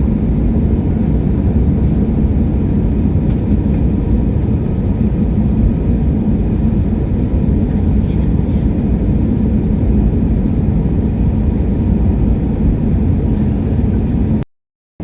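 Steady low rumble of an airliner in flight, engine and airflow noise heard from inside the cabin. It cuts out abruptly for about half a second near the end.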